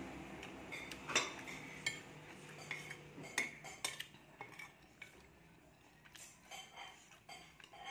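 Metal spoon clinking and scraping against a ceramic plate while scooping up rice: a series of irregular sharp clinks with short rings, the loudest about a second in and again about three and a half seconds in.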